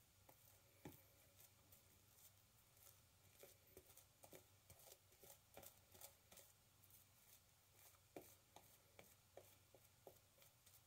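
Near silence, with faint, irregular short scratchy ticks.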